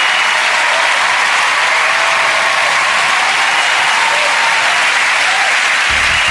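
Studio audience applauding, a dense and steady clapping. Show music comes in just before the end.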